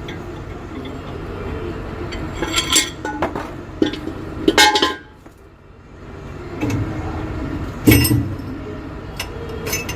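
Steel differential parts (bearing carrier, bearing cup and adjusting nut) clinking and knocking against each other as they are handled and set down, several separate sharp clinks.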